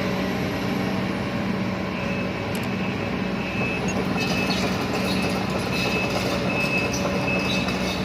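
Excavator's diesel engine running steadily with a low drone, joined from about two seconds in by a thin, high, steady squeal.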